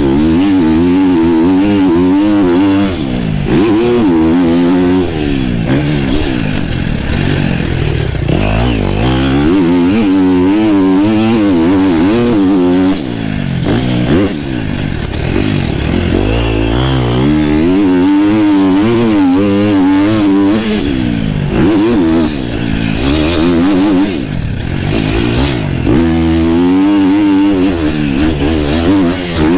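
KTM motocross bike engine being ridden hard on a dirt track, its pitch climbing and falling every couple of seconds as the throttle is opened and shut through the corners, with a few brief dips where it is shut off.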